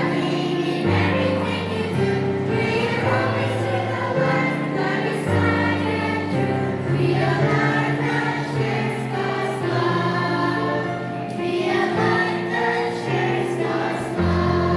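Children's choir singing a Christian song in unison over instrumental accompaniment, with a bass line moving under the voices.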